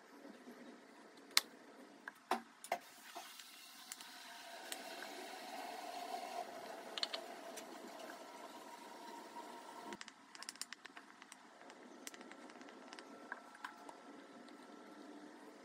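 Faint wet scraping and squishing of a thin wooden stick spreading thick white glue over a cut-out template, with a few light clicks and taps.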